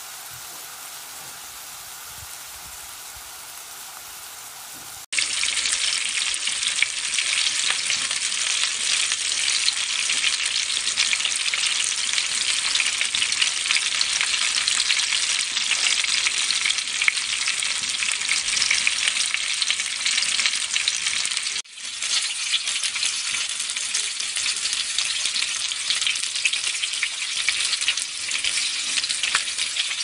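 Food frying in hot oil: burger patties sizzle softly in a stainless pan, then after an abrupt cut about five seconds in, a much louder, dense crackling sizzle of fritters frying in oil takes over, broken by a brief dropout about two-thirds of the way through.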